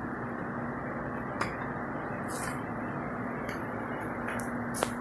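Steady background hum and hiss with a low even tone, broken by a few faint clicks or taps, one about a second and a half in and another near the end.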